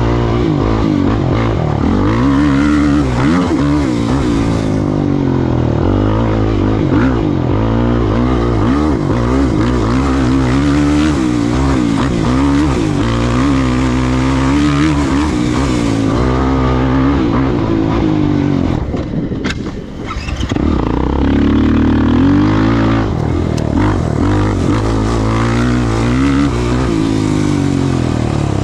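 Off-road racing engine running hard, its pitch repeatedly rising and falling as the throttle is worked, with a brief let-off about two-thirds of the way through.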